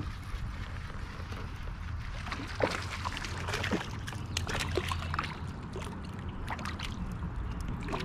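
Water splashing and sloshing against a kayak, with a cluster of small splashes about two to five seconds in, over a steady low rumble.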